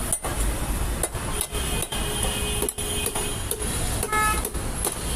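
Busy traffic noise, a steady low rumble, with a brief vehicle horn toot about four seconds in.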